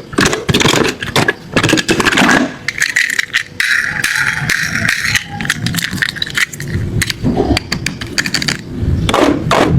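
Die-cast metal toy cars clattering and rattling, with many quick clicks and knocks and a steadier rushing sound between about two and a half and five seconds in.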